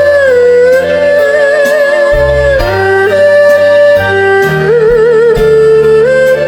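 Erhu playing a slow melody of long held notes with vibrato and slides between them, over a backing track with a bass line and a steady light beat.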